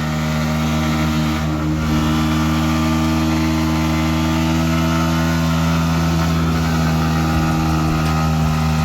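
Motorcycle engine held at steady high revs during a burnout, the rear tyre spinning against the ground.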